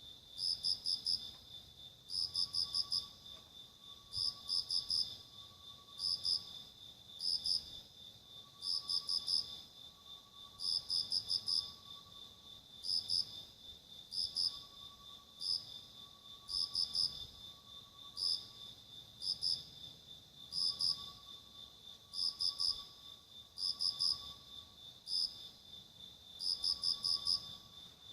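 Crickets chirping: short bursts of two to four rapid pulses repeating every second or two over a continuous high-pitched insect trill.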